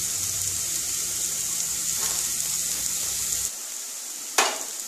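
Chopped vegetables sizzling in oil in a non-stick frying pan: a steady hiss that drops a little about three and a half seconds in. One sharp knock near the end.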